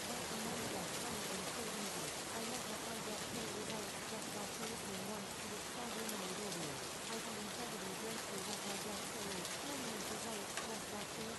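Steady rain, an even patter with no breaks, with a faint, muffled voice speaking low underneath it.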